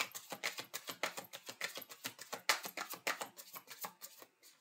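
Deck of tarot cards being shuffled by hand: a quick, even run of crisp card clicks that dies away about four seconds in.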